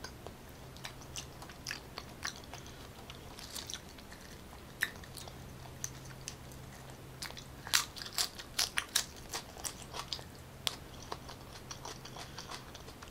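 Close-miked eating sounds: wet chewing and biting of raw salmon, with short sharp clicks and crunches scattered through and a quick run of them about eight seconds in.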